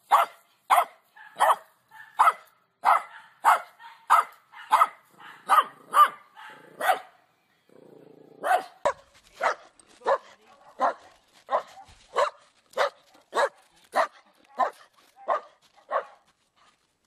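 A dog barking over and over in short, evenly spaced single barks, about one and a half a second, with a break of about a second some seven seconds in before the barking resumes.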